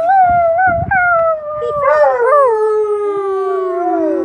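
A dog howling: one long drawn-out howl that sags slowly in pitch, with another howling voice overlapping briefly about halfway through.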